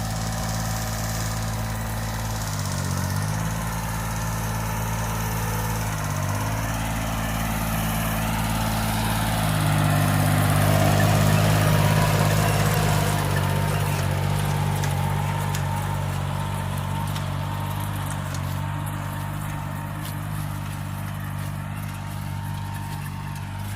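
Small tractor's engine running steadily. Its speed dips briefly twice early on, then it gets louder for a couple of seconds around the middle before easing off again.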